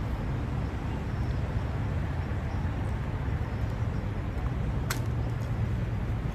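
Steady low rumble of an idling car, with a single sharp click about five seconds in.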